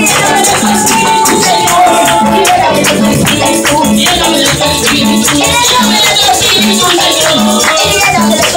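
Live worship music: electric keyboard and women's sung vocals over a steady rattling beat with hand clapping, and a low bass note on every beat.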